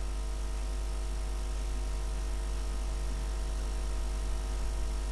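Steady electrical hum with hiss: a low mains-type hum and even background noise from the recording setup, with no other sound.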